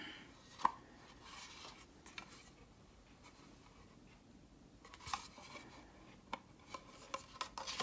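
Faint handling of a small metal tin and its paper cards: a sharp click about half a second in, then a run of light taps and clicks of metal and card near the end.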